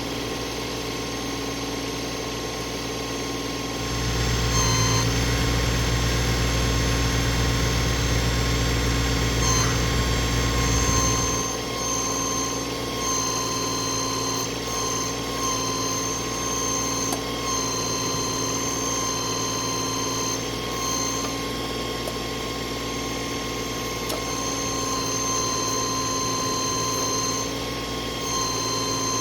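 Tractor engine running steadily, louder from about four to eleven seconds in, with a high whine that comes and goes in short stretches as the backhoe hydraulics are run to test a newly replaced hydraulic line for leaks.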